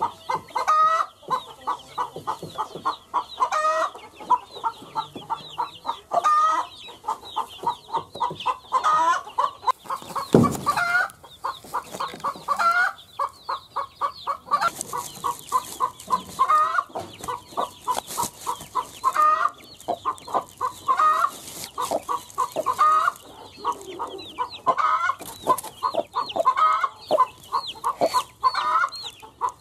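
Mother hen clucking in a fast, steady run of short notes, broken every couple of seconds by a louder drawn-out call, while her chicks peep high and thin. A short dull thump about ten seconds in.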